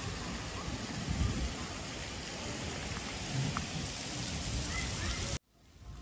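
Wind buffeting the microphone outdoors: a steady hiss with low rumbling gusts about a second in and again past three seconds. It cuts off abruptly shortly before the end.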